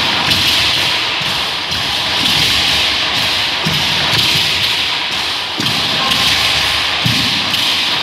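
A huehuetl, a tall carved wooden upright drum, struck with a stick in repeated deep thumps over the constant shaking rattle of a dancer's seed-pod ankle rattles (ayoyotes).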